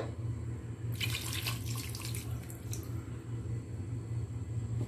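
Vinegar poured from a cup into a steel pot of meat and vegetables, splashing for about two seconds starting about a second in. A steady low hum runs underneath.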